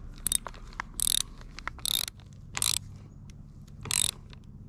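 A hand ratchet clicking in five short bursts, roughly one a second, as the bolts clamping a rubber ATV track's hinge plate and grouser are tightened down.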